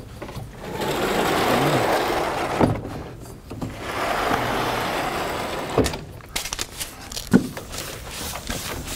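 Vertically sliding chalkboard panels pushed along their tracks: two long rolling slides of about two seconds each, then a few sharp knocks as the panels stop.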